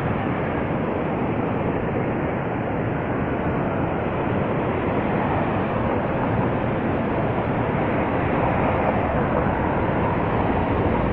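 Steady rushing noise of Niagara's Horseshoe Falls and the churning river below it, heard from the viewing rail.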